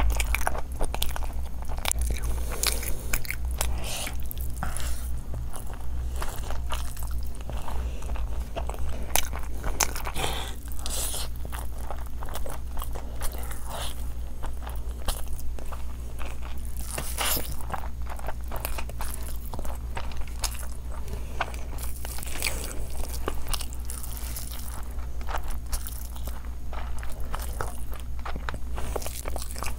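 Close-miked eating: a person chewing big handfuls of rice and meat curry with the mouth full, wet smacking with crisp crunching clicks coming irregularly all the way through.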